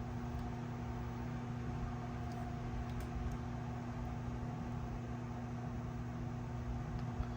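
Steady low electrical hum with a constant hiss behind it, the drone of powered workbench equipment, with a few faint ticks.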